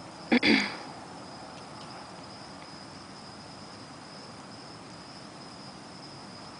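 A cricket trilling steadily on one high note. About half a second in, a brief louder sound with a falling pitch cuts across it.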